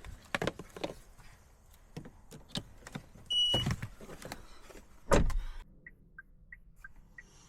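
Clicks, knocks and handling noises inside a car during key programming, with a short high electronic beep about three seconds in and two louder thumps. Near the end, a run of soft short pips alternating between two pitches.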